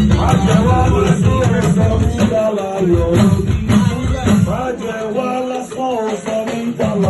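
Church music: voices singing with drums and shaken rattles or tambourine, the drums dropping back about five seconds in.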